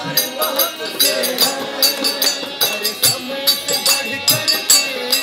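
Men singing a bhajan together to a harmonium, a dholak hand drum and small hand cymbals clashing in a quick steady beat, about four strikes a second.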